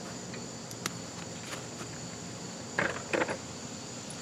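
Quiet tool-handling sounds from a ratchet being taken off a small-engine carburetor bolt: one light click about a second in, then two short scuffs near three seconds in.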